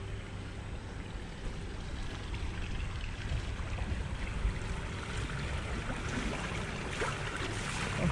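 Pool water splashing and lapping as a swimmer swims breaststroke toward the wall, over a steady low rumble. The splashing grows louder and busier in the second half as the swimmer comes close.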